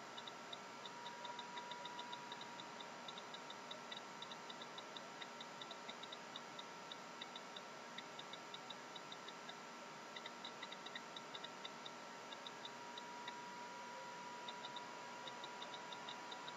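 Thumbs typing on a mobile phone: faint, quick, irregular key clicks, several a second, broken by short pauses, over a faint steady whine.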